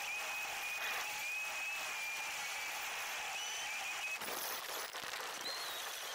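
A vehicle driving along a road, with a steady hiss of road and wind noise. A thin, wavering high whine runs over the first few seconds, and a brief higher one comes near the end.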